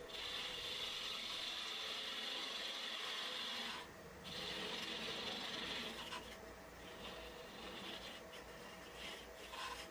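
Turning tool cutting into spinning monkey pod wood on a wood lathe, a steady scraping as it hollows a small recess at the center of the platter's bottom, with the lathe running beneath. The cut breaks off briefly about four seconds in and resumes, then turns to lighter, on-and-off touches in the last few seconds.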